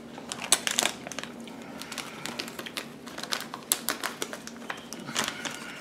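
Plastic measuring spoon scooping dry jerk seasoning from a plastic packet: a run of irregular sharp clicks and taps, with the packet rustling.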